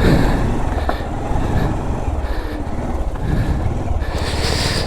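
Motorcycle running: a steady low engine rumble under a haze of road noise.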